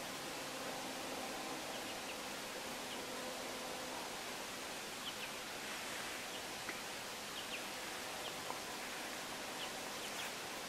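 Steady hiss of quiet woodland ambience. From about five seconds in, faint, scattered light ticks and rustles sound, like small movements in dry leaves.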